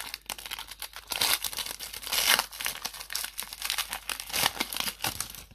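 Foil wrapper of a Pokémon TCG booster pack crinkling and tearing as it is ripped open and the cards are pulled out, a dense run of crackles that stops at the end.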